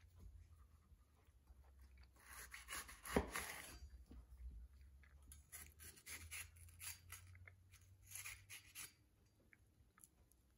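Chef's knife slicing crisp green bell pepper and knocking on an end-grain wooden cutting board: a crunchy cut with a sharp knock about three seconds in, then a run of quick, faint cuts and taps.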